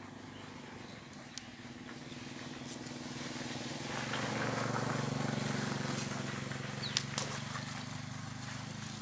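A motor engine's steady hum passing by, swelling to its loudest about halfway and then fading. A couple of sharp clicks stand out over it.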